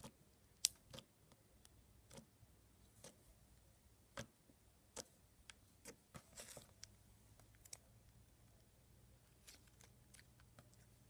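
Slime being handled and pressed by hand: faint, irregular clicks and pops, with a short crackly stretch about six and a half seconds in.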